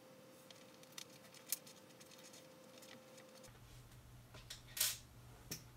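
Sparse small clicks and taps from a tiny screw and the clear plastic case part being handled while a small LED board is fitted, with a louder tap near the end. A faint steady tone runs under the first few seconds.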